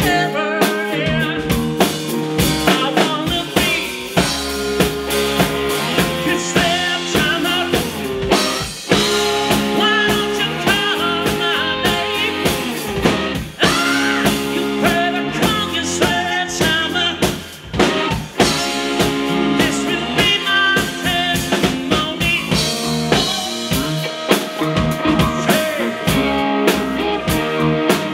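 Live band playing: drum kit, electric bass and electric guitar with a trumpet and saxophone horn section.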